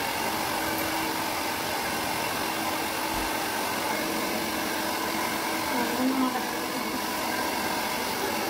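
Handheld hair dryer running steadily with an even hum, blowing on a wet cat's fur.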